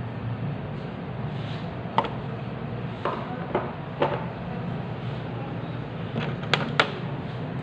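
Honda EU20i inverter generator's small single-cylinder engine running steadily after its carburetor was cleaned. Several sharp knocks and clicks come over it, the loudest two close together near the end.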